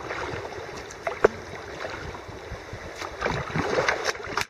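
Water splashing and dripping as a kayak is paddled, with irregular paddle strokes and a brief sharp knock about a second in.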